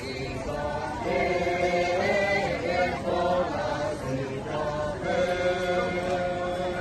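A group of voices singing a Tibetan Nangchen dro dance song in unison, in phrases of long held notes with short breaks between them.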